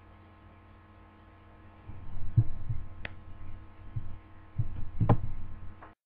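A steady low electrical hum, then an irregular run of dull low thumps with two sharper clicks, cutting off suddenly near the end.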